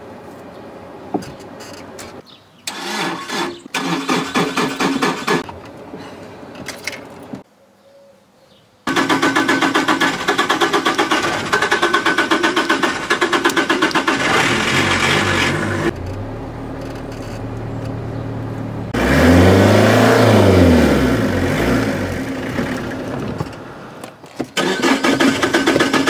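Opel Corsa B's starter cranking the hard-starting engine in short bursts without it firing, then in one long crank. The engine catches briefly, revs up and back down, and dies away, and cranking starts again near the end.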